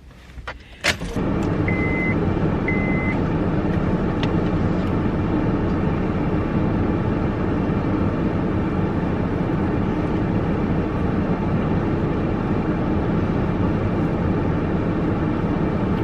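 Steady road and engine noise heard from inside a moving car, starting suddenly after a click and a thump about a second in. Two short electronic chime beeps sound soon after.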